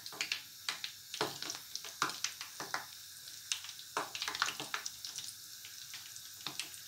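Spring rolls deep-frying in hot oil in a pan: a steady sizzle with frequent sharp crackles and pops as the oil bubbles around the freshly added rolls.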